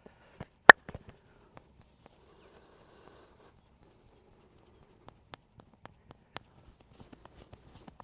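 Hand massage on a head and back: one loud sharp snap about a second in, followed by a few seconds of soft rubbing, then light irregular taps that come quicker near the end.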